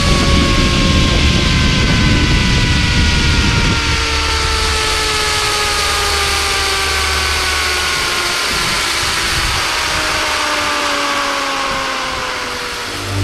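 Zipline trolley pulleys running along the cable, a whine that falls steadily in pitch as the rider slows toward the end of the line, over wind rushing on the microphone that eases about four seconds in.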